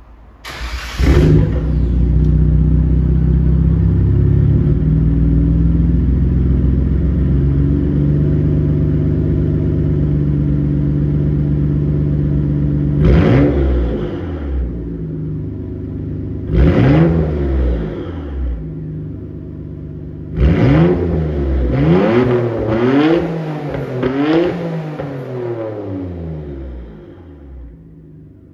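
A 1997 Nissan Skyline GT-R V-spec's twin-turbo RB26DETT straight-six, breathing through an RSE full-titanium exhaust, starts about a second in and settles to a steady idle. It is then blipped twice, revved four times in quick succession, and falls quiet near the end.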